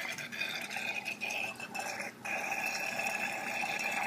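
Siphoned water rushing steadily through tubing into a stainless steel pot, with air drawn in through the drilled inlet of a homemade venturi aerator (a hose cinched with two worm clamps).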